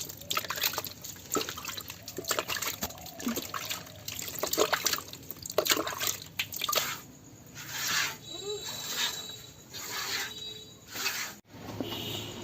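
A cow being milked by hand: short jets of milk squirting into a pail, one after another at an uneven pace.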